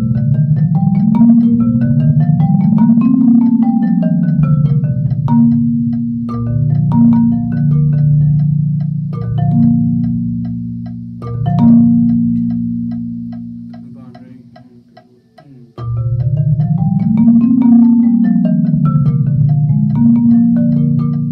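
Marimba played with yarn mallets: rapid strokes in runs that climb and fall in pitch, some low notes held as rolls. The playing dies away about twelve seconds in, stops briefly, and starts again near sixteen seconds.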